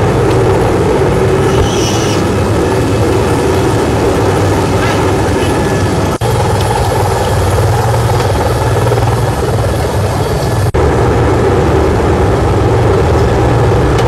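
Helicopter rotor and engine noise heard from inside the cabin: a loud, steady drone, broken by two brief dropouts about six and eleven seconds in.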